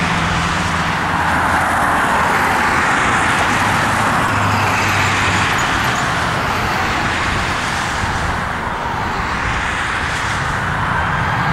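Airbus A320's twin IAE V2500 jet engines running steadily as the airliner rolls onto the runway for takeoff, a loud even rush with a low hum beneath.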